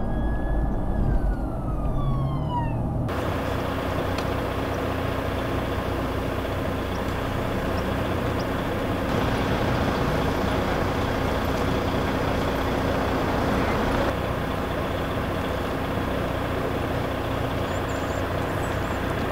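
A siren tone falls in pitch over road rumble for the first few seconds. After that comes a steady mix of engine rumble and street noise with a faint low hum.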